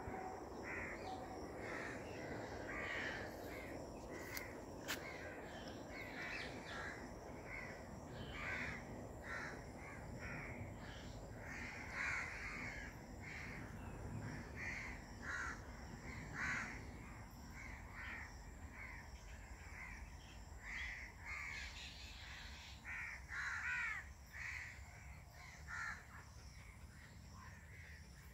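Birds calling: many short, harsh calls repeating irregularly throughout, over a low rumbling background noise that thins out about two-thirds of the way through.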